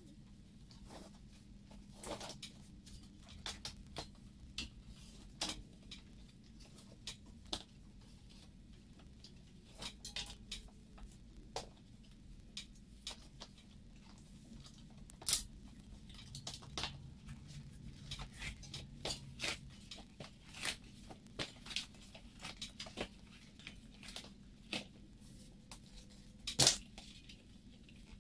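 Handling noises from working on bicycle tyres and inner tubes: scattered clicks, taps and rustles, with a sharper knock near the end, over a faint steady hum.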